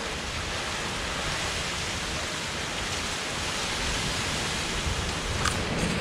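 Heavy rain pouring down in a storm, a steady dense hiss with a few faint ticks near the end.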